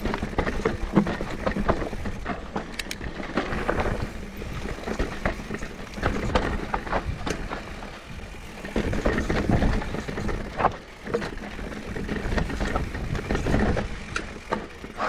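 Mountain bike riding down a dirt trail: tyres rolling and crunching over the ground, with frequent rattles and knocks from the bike, under an uneven rumble of wind on the microphone.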